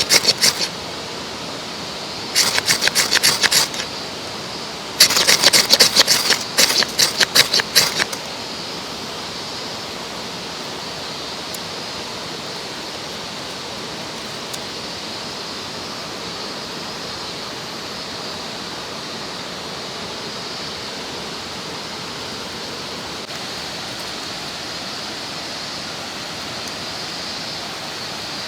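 Handsaw cutting wood in three bursts of rapid strokes over the first eight seconds, then the steady rush of a mountain stream.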